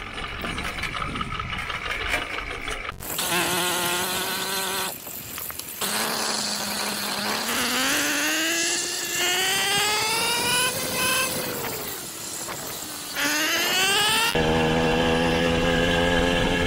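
80cc two-stroke motorized-bicycle engine accelerating the bike: after about three quieter seconds the engine note comes in loud and climbs in pitch, dips briefly about twelve seconds in and climbs again, then holds a steady drone near the end.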